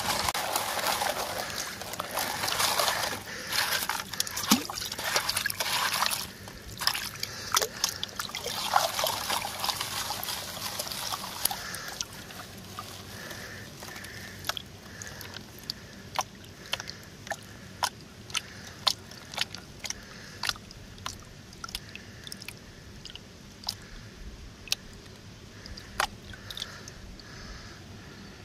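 Water sloshing and splashing in a plastic gold pan as muddy creek gravel is swirled and washed out, loud and dense for about the first twelve seconds. After that the sloshing turns quieter and is broken by scattered sharp ticks, one or two a second.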